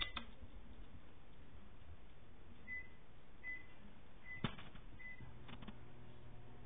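Quiet room tone with a few faint short high chirps and a single sharp knock about four and a half seconds in, then a low steady hum that comes in just after.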